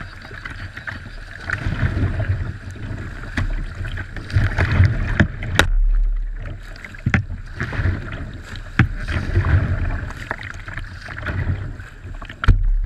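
Whitewater kayak being paddled down a rapid-strewn river: steady rushing water with irregular splashes of the paddle blades and water slapping the hull, and low rumbling buffets on the bow-mounted camera's microphone.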